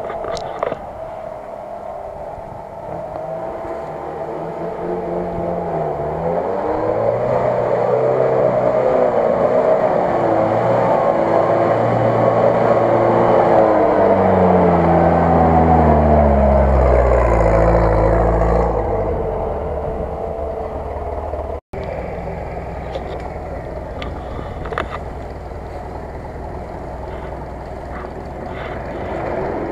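UAZ-469 off-roader's engine revving up and down as it churns through a muddy rut, growing louder as it comes close and fading after it passes. After a sudden cut a second off-road vehicle's engine runs lower and steadier.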